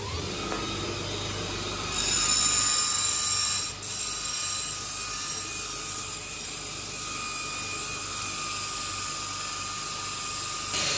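Bench grinder running with a steady high whine as a steel knife blade is ground against its wheel. The grinding gets louder about two seconds in, dips briefly, then runs on evenly.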